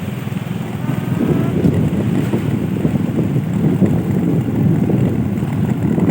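Wind buffeting the microphone, with the low drone of a running engine beneath, in gusts that swell and ease.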